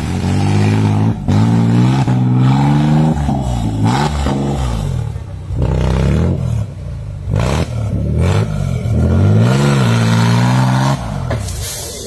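Modified off-road 4x4's engine revving hard in repeated surges while working through deep mud, its pitch climbing and dropping about half a dozen times, with brief lulls between the pushes.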